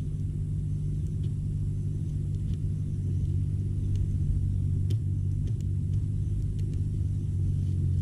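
A steady low hum with several even pitches, under faint scattered crackles from a small wood campfire.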